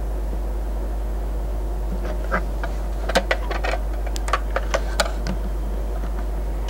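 Steady low hum, with a cluster of small clicks and taps about two to five seconds in as the lens and the plastic dosimeter are handled.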